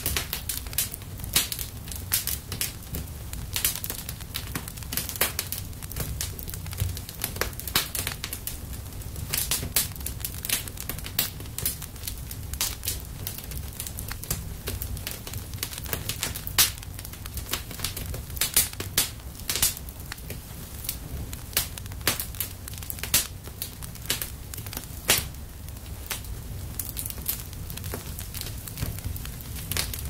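Wood fire crackling: many irregular sharp pops and snaps over a low steady rumble.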